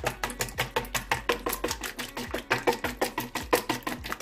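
Hand whisk beating egg white in a stainless steel bowl: fast, even clicking and rattling of the whisk against the bowl, about seven strokes a second.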